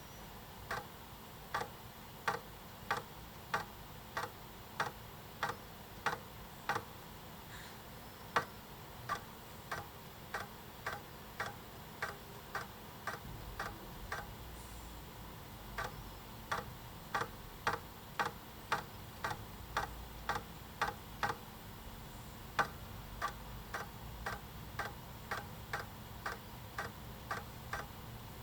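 The X-axis stepper motor of a CNC 3018 router making many tiny jog moves back and forth, each one a short sharp tick, about one and a half a second with a couple of brief pauses.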